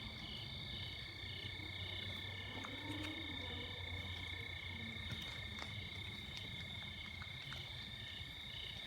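Night-time chorus of calling frogs and insects: steady high-pitched trilling, with a pulsing call repeating a few times a second.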